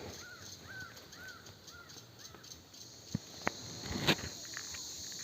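Steady insect buzzing, with a bird repeating a short up-and-down note five times in the first couple of seconds. A few sharp clicks follow in the last two seconds.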